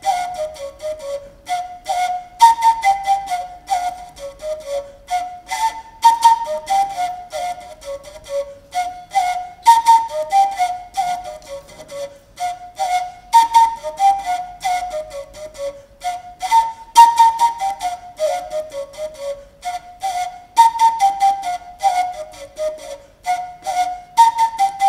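Tshipotolio, a traditional African end-blown flute, played solo. The same short phrase of notes stepping downward repeats about every three and a half seconds, each note started with a sharp, breathy attack.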